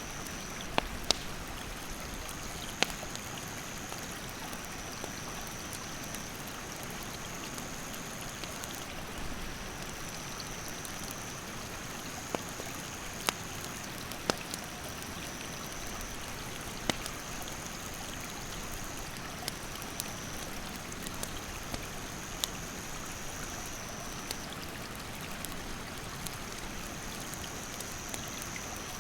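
Stream water rushing steadily, with a wood campfire crackling in a dozen or so sharp pops. A high, thin insect trill runs over it, stepping between two close pitches every second or two.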